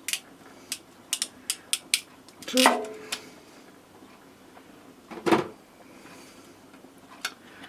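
Sharp, irregular clicks from a hand crimping tool and crimp connectors being handled, a quick run of them in the first two seconds, then a few louder, scattered clacks.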